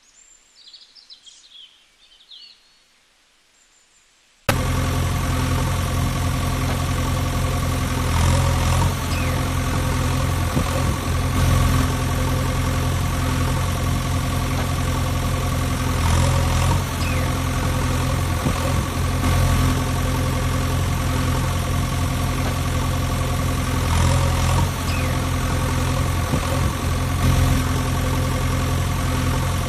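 A few faint bird chirps, then a steady engine idling sound of a heavy machine cuts in suddenly about four and a half seconds in and runs on evenly.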